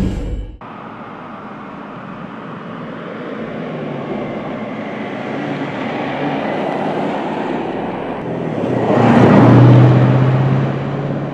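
A 2014 BMW X5 xDrive50i with its twin-turbo V8 driving by: engine and tyre noise build steadily, swell to a peak with a low engine hum about nine to ten seconds in as the SUV passes, then fade as it pulls away.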